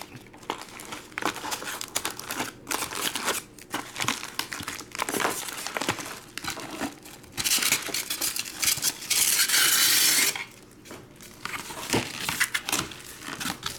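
Trading-card packs and plastic wrapping crinkling and rustling as packs are pulled from a box and stacked. Near the middle comes a loud, dense crinkle or tear lasting about three seconds.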